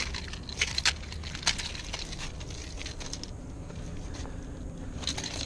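Steady low rumble of wind and sea on a head-mounted camera's microphone, with scattered light clicks and taps from handling the gaff, rod and reel while unhooking a landed fish.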